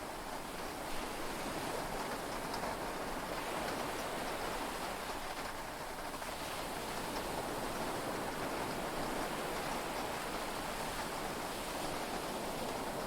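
Steady heavy rain and sea waves heard from inside a yacht cabin: an even rushing wash with faint drop ticks and no thunder.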